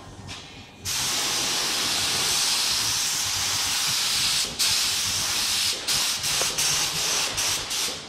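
Compressed-air spray gun hissing as it sprays lacquer onto a wooden boat hull. It starts about a second in and runs steadily, then breaks off briefly and comes in short stops and starts over the last few seconds.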